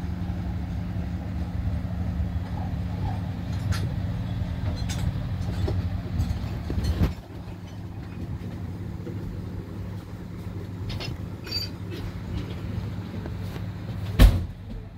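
Steady low mechanical hum of a running machine, louder for about the first seven seconds and then quieter, with a few light clicks and one sharp knock shortly before the end.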